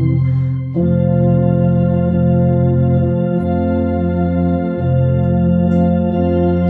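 Organ and euphonium playing a slow hymn together in sustained chords that change every second or so. There is a short break just under a second in before the next chord.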